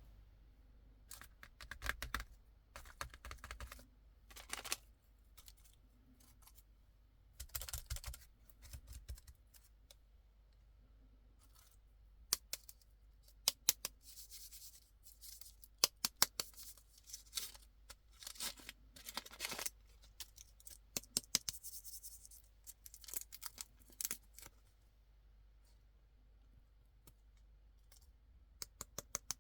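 Candy packaging being handled and opened by hand: irregular crinkling and tearing of wrappers and packets, with clusters of sharp clicks and snips and short pauses between.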